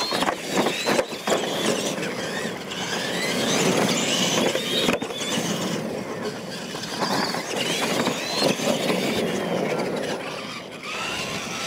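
Radio-controlled monster trucks racing on dirt: their motors and gears whine, the pitch rising and falling with the throttle, with a few sharp knocks in the first second as they bounce over the bumps.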